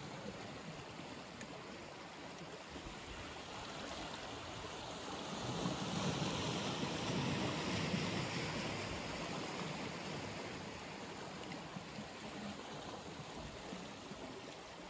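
Outdoor shoreline noise of wind and water lapping on the rocks, a steady rushing hiss that swells and fades again in the middle.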